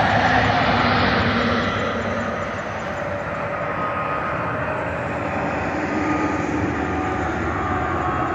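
Jet airliner flying over: a steady engine noise with a faint whine above it.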